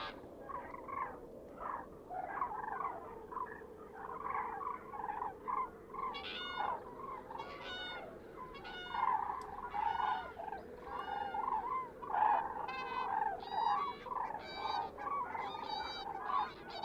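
A flock of whooper swans calling, many honking calls overlapping. From about six seconds in, clearer, higher-ringing calls stand out above the rest.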